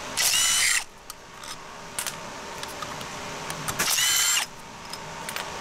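A power tool with a 13 mm socket runs in two short bursts, about half a second each, shortly after the start and again around four seconds in. Each burst is a motor whine rising and levelling off as it loosens the cylinder head bolts of a Briggs & Stratton EXi engine. Light clicks of metal handling come between the bursts.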